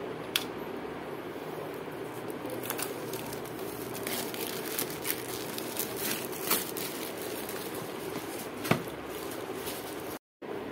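Clear plastic shrink-wrap being torn and peeled off a phone box, crinkling in irregular bursts, with a few sharp taps. The loudest tap comes near the end. A steady low hum runs underneath.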